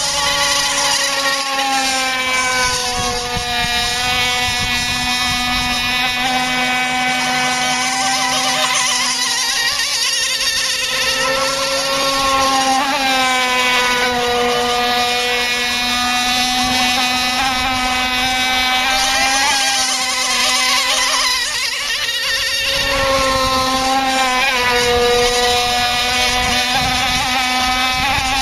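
Radio-controlled model speedboats running fast on the water, their small engines giving a loud, high-pitched drone. The pitch dips and climbs again several times as the boats slow for turns and speed up.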